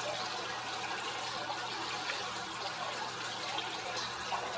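Steady outdoor background hiss, even and unbroken, with a faint low hum underneath.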